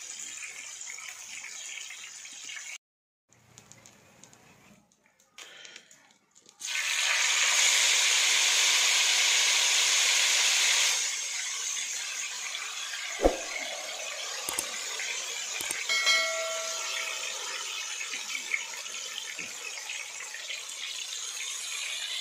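Large pieces of fish sizzling as they deep-fry in a wide pan of hot oil: a steady hiss. The hiss cuts out about three seconds in, comes back louder a few seconds later, then settles to a steadier level with a few light clicks.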